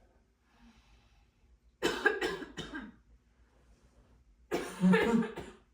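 A person coughing in two bouts about two seconds apart, each of a few harsh coughs. The coughs are put on as part of a fake blood-coughing prank.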